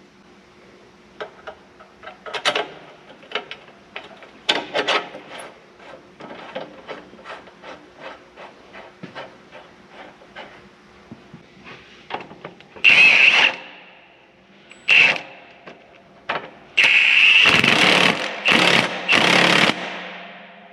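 Metal clinks and knocks as a new closing disc arm is fitted onto a Case IH 2160 planter row unit. Then a handheld power tool runs in loud bursts: two short ones, then a longer run of about three seconds near the end.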